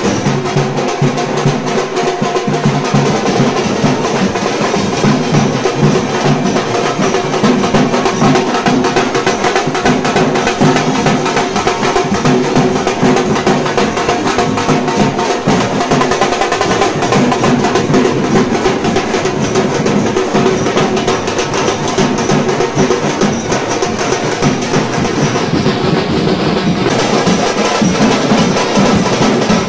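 Drums played in a fast, steady beat with no let-up, festive drumming of a welcome.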